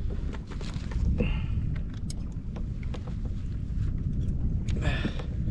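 Low steady rumble of wind on the microphone over open water, with scattered light clicks and taps of fishing gear being handled in a kayak.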